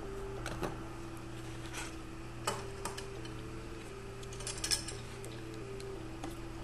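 Soft background music with a slowly stepping melody, under scattered clicks and a brief crackle of trading-card packs being handled, the crackle coming a little past halfway.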